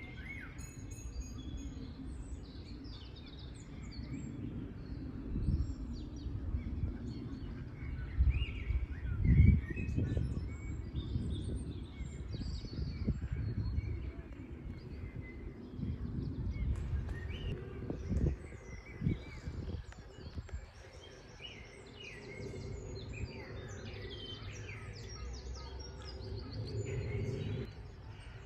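Many small birds chirping, short overlapping calls throughout, over a steady low rumble of outdoor noise. There are louder low thumps about nine seconds in and again around eighteen seconds.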